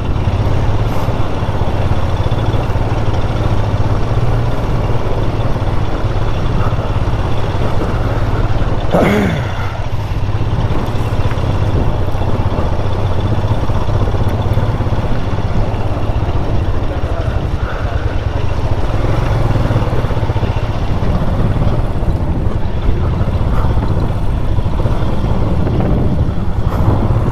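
Motorcycle engine running steadily while riding, with road and wind noise. A short falling tone comes about nine seconds in.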